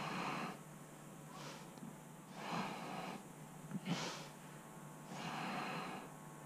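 A person breathing audibly close to the microphone, five breaths about a second or so apart, the sharpest and loudest about four seconds in.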